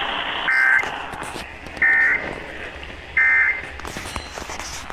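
Emergency Alert System end-of-message data signal heard over radio: three short, shrill two-tone warbling bursts about 1.3 seconds apart, with faint hiss between them. The bursts mark the end of the relayed alert.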